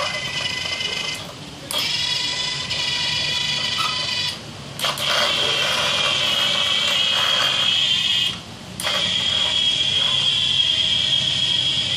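Small electric gear motors of a homemade remote-control forklift robot whining as it drives. The whine comes in runs of a few seconds, broken by short pauses about a second, four and eight seconds in, and its pitch changes from one run to the next.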